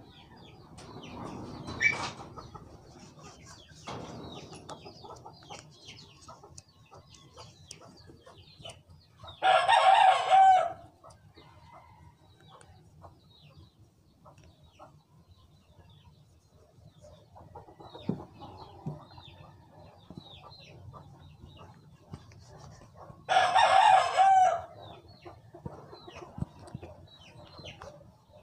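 A rooster crows twice, about fourteen seconds apart, each crow lasting just over a second. Between the crows there are faint rustling and small clicks of a vape pod being handled and wiped with a cloth.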